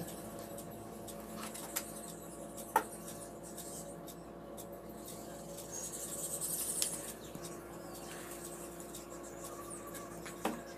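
Faint handling sounds: a few small sharp clicks, the loudest about three seconds in, and a brief rustle past the middle, as fingers work the wire leads of a tiny soldered circuit held in a metal alligator clip. A steady low hum runs underneath.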